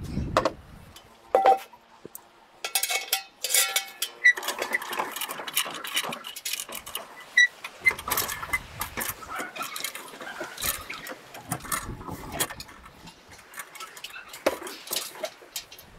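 Irregular knocks, clinks and rattles of a metal bucket, its rope hook and a wooden well's lid and windlass frame being handled, with a few brief metallic rings.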